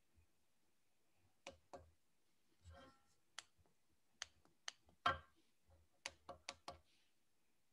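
Faint, irregular small clicks and taps, about a dozen, with one louder knock about five seconds in, over near silence.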